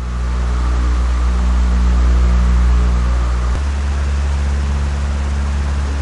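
Electric stand fan running at speed, first with a three-blade rotor: a steady low hum under rushing air noise. About three and a half seconds in, it cuts to the same fan with a four-blade rotor, and the hum steps up to a higher pitch; more blades give a higher-pitched fan sound.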